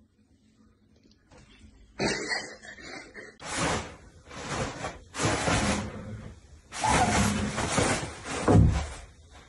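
Toilet paper pulled from the roll by a kitten: a run of loud rustling and rattling bursts about once a second, starting about two seconds in.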